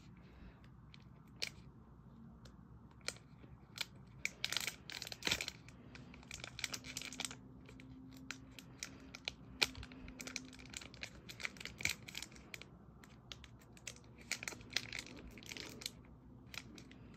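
Foil wrapper of a Pokémon card booster pack crinkling and tearing in short, irregular bursts as it is struggled open.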